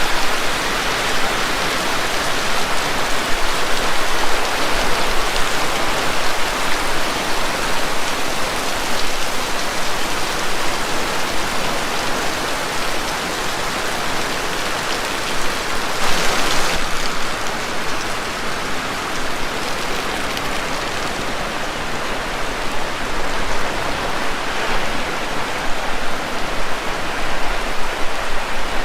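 Heavy rain falling steadily and hitting surfaces, a dense even hiss, with a brief louder gust of it about halfway through.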